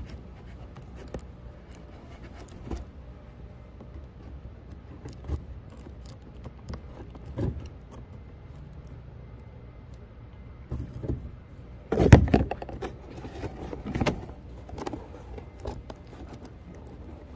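A cardboard shipping box being opened by hand: packing tape slit and the flaps pulled and scraped, with scattered short clicks and rustles. The loudest handling comes about twelve seconds in, with another burst near fourteen.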